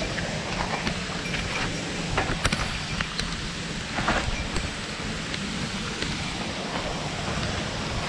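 Footsteps of a runner descending a rocky trail: irregular scuffs and clicks of shoes on stones and loose ground. Under them is a steady hiss and low rumble of wind and motion on a body-worn camera's microphone.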